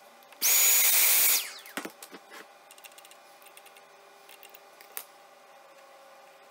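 A small high-speed electric motor runs for about a second with a loud whine, then spins down, followed by a few light clicks and scrapes.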